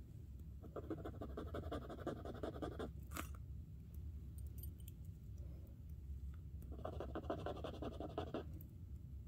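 A silver earring scratched back and forth on a black testing stone, leaving a streak for an acid test of whether it is sterling silver. There are two bursts of rapid scratching, one about a second in and one near the end, with a sharp click between them.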